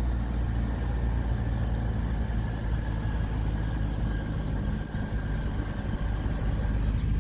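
A car driving, with a steady low hum of engine and road noise.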